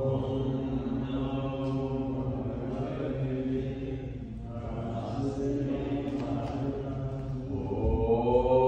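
A voice chanting a Sanskrit verse in long held notes, the pitch rising near the end.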